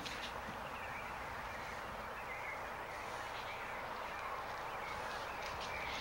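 Steady, quiet background noise with a few faint, short high chirps now and then.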